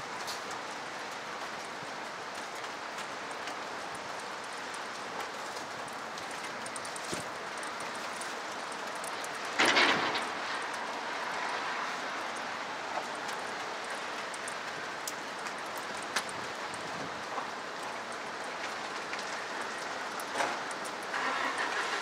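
Steady hiss of rain falling over a distant hum of city traffic, with scattered light ticks of drops and a sudden, louder burst of noise about ten seconds in.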